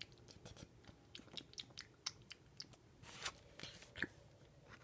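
Faint close-miked chewing and crunching of Hot Cheetos: a scatter of small crisp clicks, with a brief hiss a little past three seconds in and a sharper click about four seconds in.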